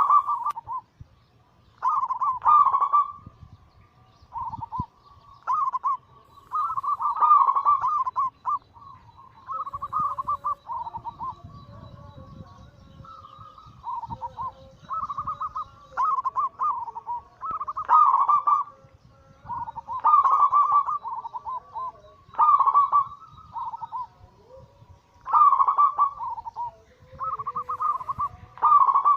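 Zebra doves (perkutut) cooing: repeated short phrases of rapid, staccato trilled coos, each about a second long, coming every second or two, with fainter lower coos overlapping between them.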